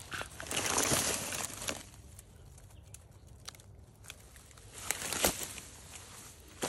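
A rotting log rolled over by hand, its bark scraping and dry leaves and twigs rustling for about a second. Dry brush crunches and a twig snaps underfoot near the end.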